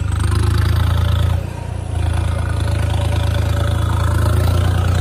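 Swaraj tractor's diesel engine running steadily with a low drone, easing off briefly about a second and a half in.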